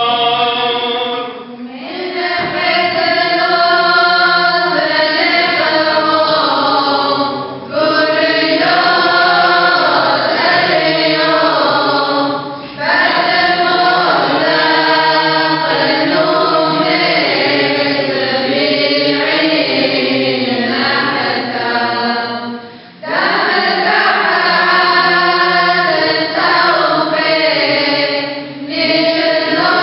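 Choir chanting a Syriac Orthodox liturgical hymn, in long sung phrases with several short pauses between them.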